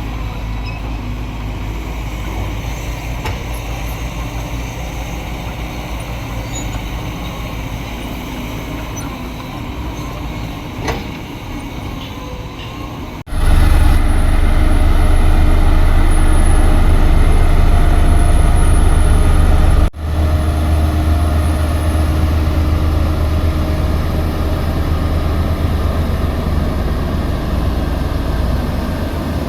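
Diesel engines of heavy construction machinery running steadily, broken by two abrupt cuts about 13 and 20 seconds in. The middle stretch is the loudest, with a deep rumble.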